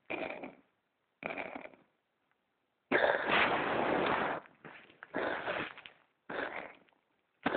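Cat coughing: a run of short, noisy hacking coughs, with one longer, louder bout of over a second about three seconds in.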